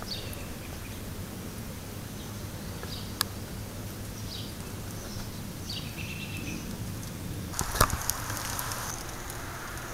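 Quiet outdoor background: a steady low hum and hiss with a few faint high chirps, a single click about three seconds in, and a short cluster of clicks about eight seconds in.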